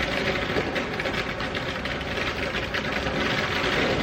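A firework spraying sparks: a steady, dense fizzing crackle with no bang.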